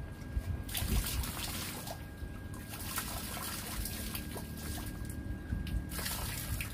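Liquid trickling and splashing, swelling and easing in spells of a second or two.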